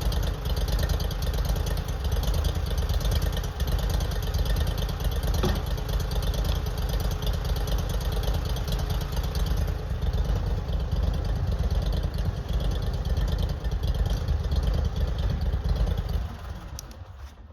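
A small engine running steadily at a constant speed, fading out near the end.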